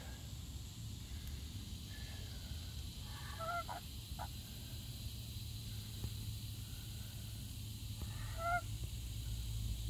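Domestic geese giving short honks: a few about three and a half seconds in, then one more near the end, over a steady low hum.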